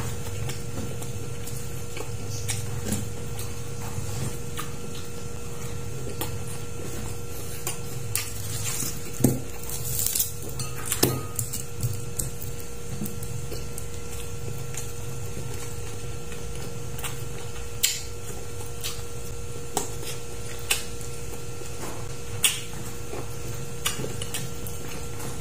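A person eating by hand: scattered sharp smacks and clicks of mouth and fingers on food and a plate, bunched together about a third of the way in, over a steady low hum.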